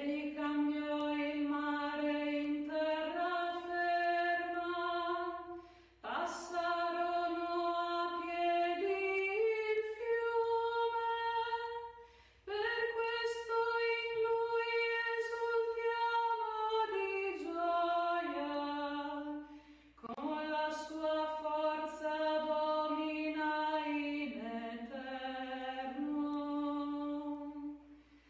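A woman's solo voice singing a responsorial psalm unaccompanied, in four long phrases of held notes with brief breath pauses between them.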